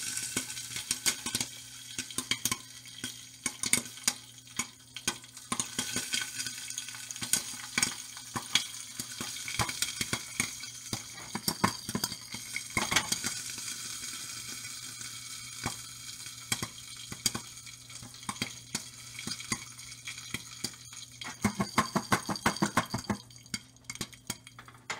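Popcorn popping in hot oil inside a lidded stainless steel saucepan: a rapid, irregular scatter of sharp pops over the sizzle of the oil, with the pan rattling as it is shaken on the burner. The popping thins out near the end as the batch finishes.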